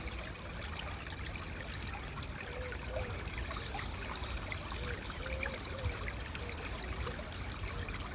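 Shallow creek water flowing and trickling over its bed, a steady babble with occasional small gurgles.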